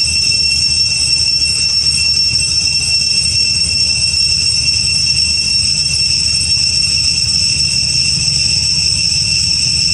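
A steady, loud chorus of insects: a continuous high-pitched drone that never pauses, over a low rumble.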